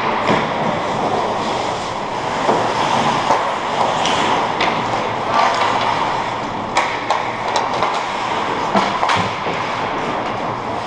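Ice hockey play close by: skate blades scraping and carving the ice, with a string of sharp clacks and knocks from sticks, puck and pads over a steady rink noise.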